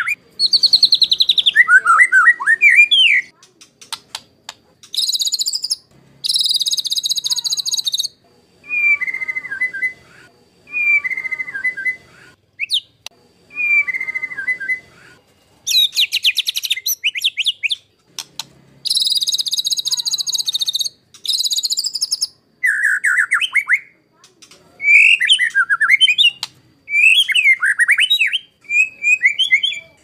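White-rumped shama (murai batu) singing: short whistled phrases alternate with harsh, rasping bursts lasting one to two seconds (the 'tembakan kasar', rough shots), with brief pauses between phrases.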